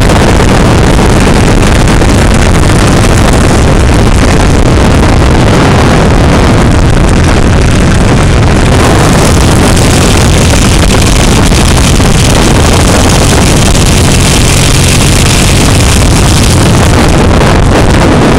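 Harley-Davidson Iron 883's V-twin engine running steadily at riding speed, heard under loud wind buffeting on the microphone of a camera held by the rider.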